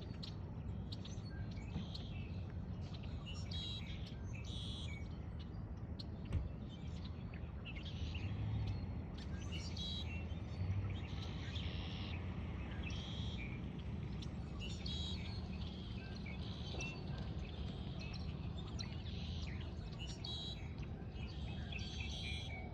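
Dawn chorus of many birds calling and singing, with overlapping short calls throughout, over a steady low rumble. One brief knock about six seconds in.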